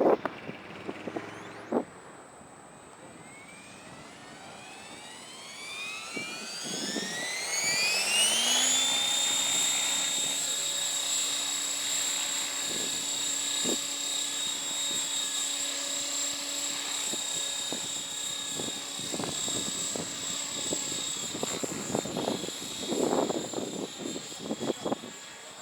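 Align T-Rex 700E electric RC helicopter spooling up: the 700MX motor and rotor whine rise steadily in pitch for about six seconds, then hold a steady high whine at flying head speed. Wind gusts on the microphone near the start and near the end.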